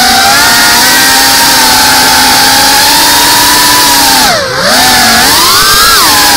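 Brushless motors and ducted propellers of a GEPRC Cinelog 35 cinewhoop FPV drone, heard from its onboard camera: a loud, steady whine that drops sharply in pitch about four and a half seconds in as the throttle is chopped, then rises back up as power comes back on.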